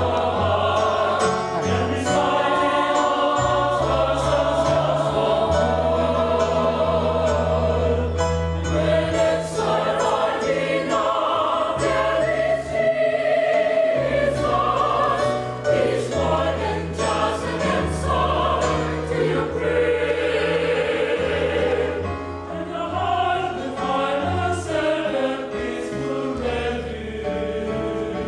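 Mixed choir of men and women singing a sacred piece in several parts, with long held notes.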